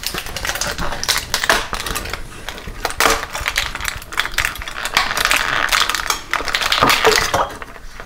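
Crinkling and clicking of a foil blister pack as Jura descaling tablets are pressed out and dropped into a measuring cup of water: a dense run of small crackles with a few sharper clicks, the sharpest about three seconds in and near the end.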